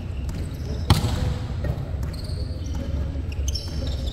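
A volleyball struck once with a sharp slap about a second in, over the low hum and echo of a large indoor sports hall.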